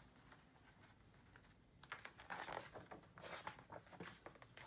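Pages of a hardcover picture book being turned by hand: faint paper rustling and small handling clicks, starting about two seconds in.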